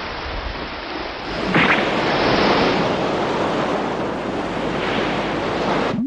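Ocean waves sound effect: a steady rushing of sea water that grows a little louder about a second and a half in and stops abruptly near the end.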